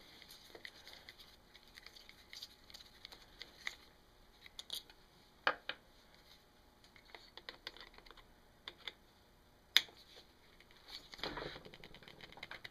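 Scattered light clicks and taps of hand tools on the engine's aluminium case as the tight points-cover screws are worked loose, with two sharper clicks in the middle and a short scrape near the end.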